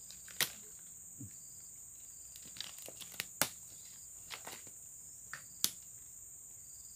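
Insects trilling steadily in the background, with a few sharp clicks and crackles from handling a just-landed small snakehead on the line among leaves and twigs.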